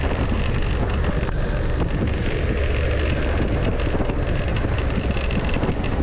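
Suzuki SV650 motorcycle riding at around 50 km/h, its V-twin engine running off the throttle under heavy wind noise on a helmet intercom microphone. Faint knocks from the bumpy, patched road surface come through now and then.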